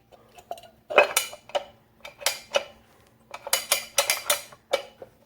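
Rebuilt hay rake drive hub being worked by hand: a dozen or so irregular metal clicks and clanks with a short ring, coming faster in clusters past the middle, as the spring-loaded mechanism engages and operates the way it is supposed to.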